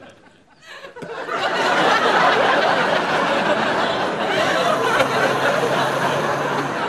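Studio audience laughing, coming in about a second in after a brief lull and carrying on steadily.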